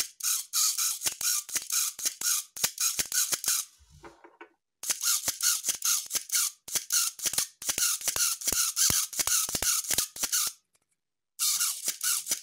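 Canon A-1 mirror damper gear train, worked by hand in the opened mirror box, chattering in quick runs of short, dry squeaks, with pauses about four seconds in and shortly before the end. The sound comes from the dried-out bearing in the mirror damper, the cause of the infamous Canon squeak.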